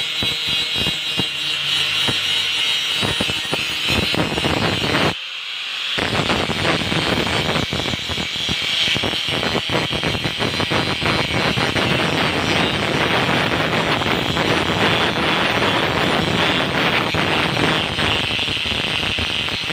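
Electric angle grinder running at speed with its disc pressed against the steel blade of an old machete: a high whine over harsh, fluttering grinding noise as the blade is ground down during restoration. The grinding dips briefly about five seconds in, then carries on.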